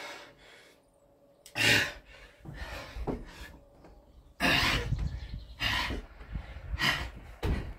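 A man breathing hard from exertion during Navy Seal burpees: about half a dozen loud, forceful breaths at uneven spacing, with quieter gaps between them.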